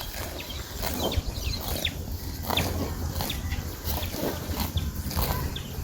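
Birds chirping and calling in short, scattered notes over a steady low rumble and faint hiss.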